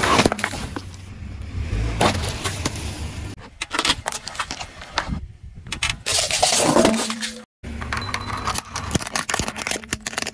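A car tyre rolling slowly over objects in a series of short cut-together clips: plastic soda bottles bursting with a spray of fizzy drink, a soft ball being squashed, and near the end a plastic toy cracking and snapping under the tread. Many sharp cracks and crunches over a low rumble of the tyre on the pavement.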